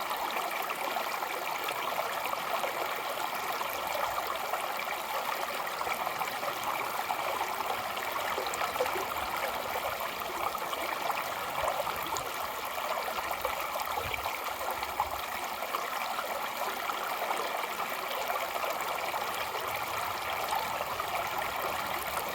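Mountain stream flowing and splashing over rocks, a steady rushing and burbling.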